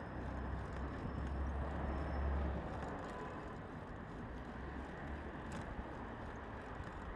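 City street traffic noise from passing vehicles, with a low rumble that swells about a second in and fades out by about three seconds.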